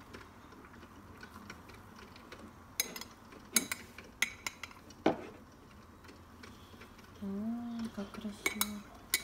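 A metal teaspoon clinking against glass, as milk foam is scooped from a glass jug and spooned onto a glass mug of coffee. There are a handful of sharp, irregularly spaced clinks.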